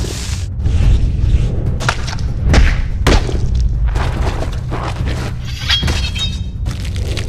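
A deep, steady low rumble with several sharp knocks and thuds scattered over it.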